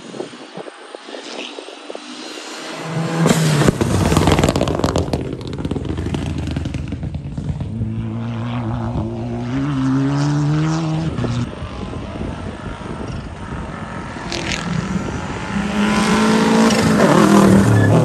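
Rally car engines accelerating hard along a gravel stage, the pitch climbing and dropping back several times through gear changes. The loudest moment, near the end, is a Subaru Impreza rally car passing close by on the gravel.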